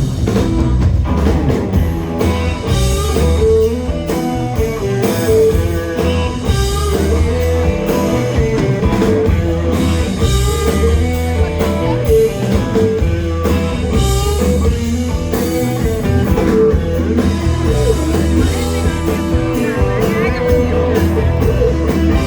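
Rock music with electric guitar over a steady band beat.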